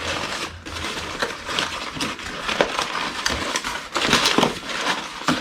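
Packaging being handled: irregular crinkling and rustling with small clicks, and a louder burst of rustling about four seconds in.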